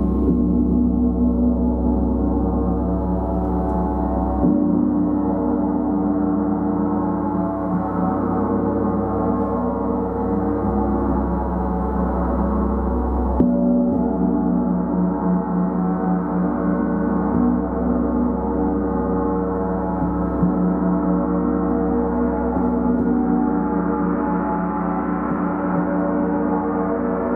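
Gongs played continuously: a dense, sustained wash of overlapping ringing tones, with fresh strikes about four seconds in, around the middle, and about three-quarters through.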